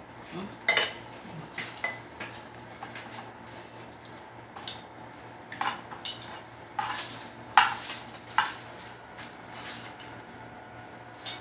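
Metal fork and spoon clinking and scraping against an aluminium foil food tray: irregular sharp clicks and short scrapes, with a few louder clinks.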